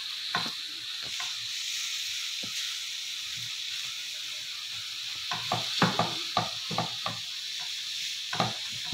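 Chicken mince frying in a nonstick pan with a steady sizzle, while a silicone spatula stirs the spices through it. A quick run of spatula scrapes and knocks on the pan comes a little after the middle, and one more near the end.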